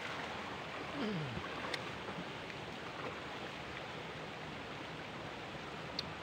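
Steady rush of a fast-flowing, muddy river running over rocks, with a couple of sharp clicks, the loudest near the end.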